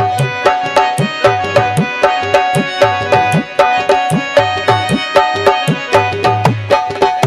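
Instrumental interlude of folk music: tabla and dholak play a fast, even rhythm of about four strokes a second, the bass strokes sliding up in pitch, over sustained harmonium notes.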